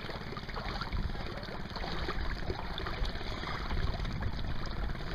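Water sloshing and lightly splashing around a man wading chest-deep with a tarpon held alongside him for release, with a low rumble of wind on the microphone.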